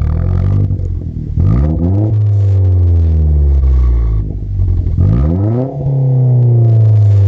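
2015 Chevy Sonic RS 1.4-litre turbocharged four-cylinder through a ZZP turboback exhaust, revved twice: each time the pitch climbs quickly, then sinks slowly back as the revs fall.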